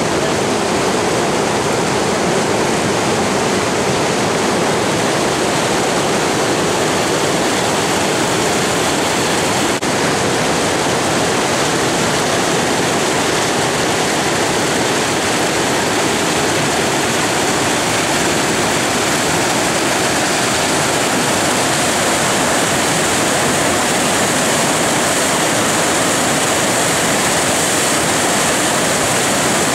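Sechelt Rapids tidal current on a large flood tide: fast water steadily rushing and breaking over a standing wave.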